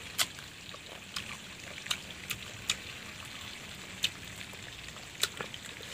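Someone chewing crisp young kedondong (ambarella) fruit: about eight short, sharp crunches and mouth clicks at uneven intervals.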